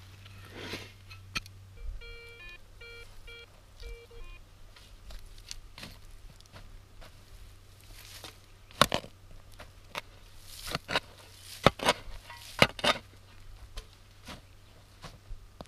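Metal detector sounding a quick run of short electronic beeps about two seconds in, signalling metal in the ground. From about eight seconds there are several loud, sharp crunches and knocks.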